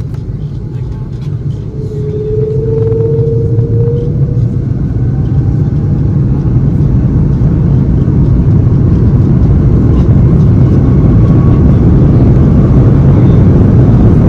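Airbus A330-200's Rolls-Royce Trent 700 engines spooling up to takeoff power, heard inside the cabin: a low rumble that grows steadily louder, with a short whine about two seconds in.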